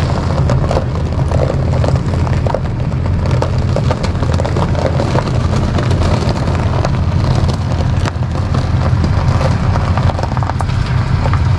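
Dodge 2500 pickup's engine running steadily under load in four-wheel-drive low as it backs out of the mud, a deep continuous rumble with scattered crackling over it.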